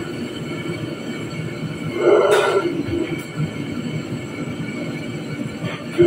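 A commercial gas wok burner and kitchen exhaust running with a steady rushing noise while a wok is cooked on high flame. There is a louder burst of frying noise about two seconds in.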